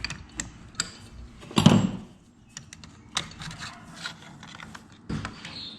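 Scattered clicks and knocks of tools and engine parts being handled during the teardown of a two-stroke engine, with one heavier knock a little over a second and a half in.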